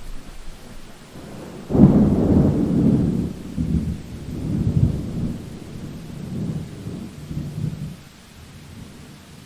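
A thunderclap over steady rain: a sudden loud crack a couple of seconds in, then low rumbling that rolls on in several surges for about six seconds and dies away.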